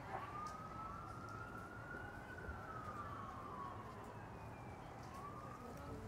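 An emergency-vehicle siren wailing: one slow sweep that rises for about two seconds, falls for about two more, then starts to rise again near the end.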